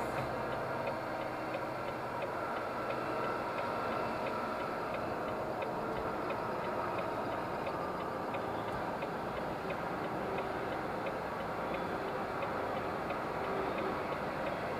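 A vehicle's turn-signal indicator clicking steadily inside the cab while it turns, over the steady hum of the engine and tyres.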